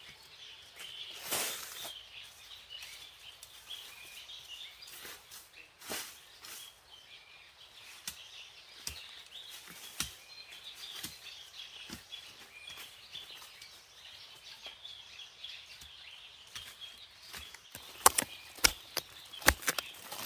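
Outdoor ambience with steady high-pitched chirping, scattered light clicks and rustles, and a run of sharp, loud knocks starting about eighteen seconds in.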